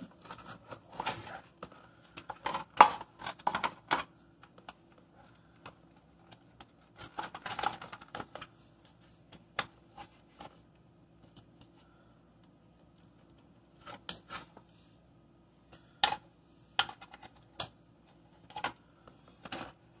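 Plastic wire-harness connectors being handled and pushed into a refrigerator control board's sockets: scattered plastic clicks and rustling of wires, with the sharpest click about three seconds in and several separate clicks near the end.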